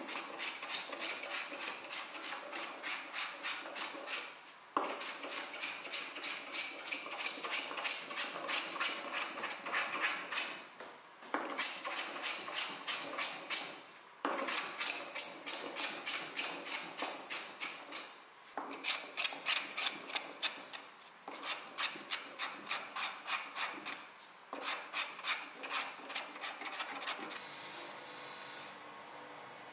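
Quick repeated strokes of a hand tool shaving and scraping the edge of a round wooden stool seat, about three strokes a second in runs of several seconds with short pauses between. The strokes stop shortly before the end.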